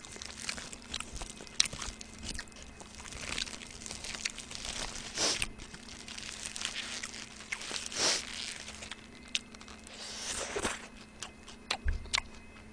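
Foil burger wrapper crinkling as it is peeled open, with biting and chewing of the burger close to the microphone: scattered sharp clicks and several short rustling bursts. A faint steady low hum runs underneath.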